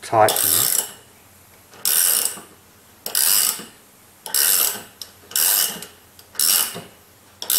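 Ratcheting ring spanner clicking in short bursts about once a second as it is swung back on each return stroke, tightening a rivnut setting tool to draw the rivnut up and form its flange inside thin-wall tubing.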